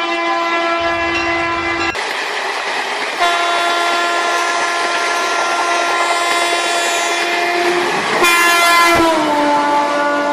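A train horn sounding in long, steady blasts, changing abruptly about two and three seconds in, with the pitch dropping near the end.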